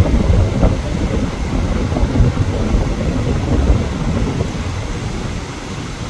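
Strong wind buffeting the phone's microphone in a low, uneven rumble, over the rush of choppy surf driven by storm wind.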